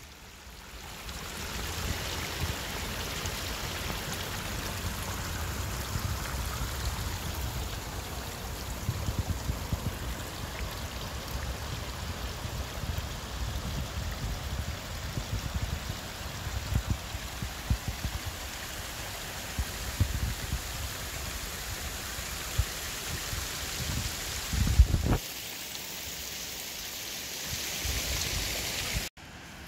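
Shallow water running and splashing, with irregular low rumbles of wind on the microphone. The sound changes abruptly about 25 seconds in and again near the end.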